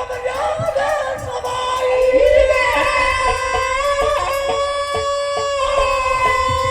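Gotiya folk devotional singing, with long held notes over a steady drum beat of about three strokes a second.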